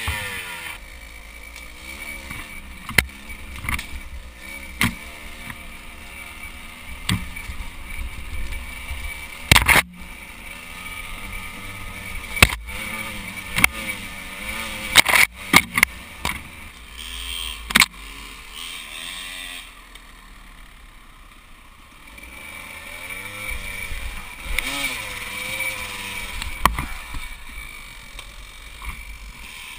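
Dirt bike engine revving up and down as it is ridden over a rough woodland trail, its pitch rising and falling with the throttle. Sharp knocks and clatters from the bike jolting over bumps and roots come again and again, thickest in the middle, with a quieter stretch a little past the middle.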